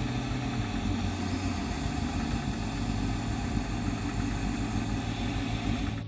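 Vacuum cleaner running steadily, sucking engine oil out through a tube in the dipstick hole.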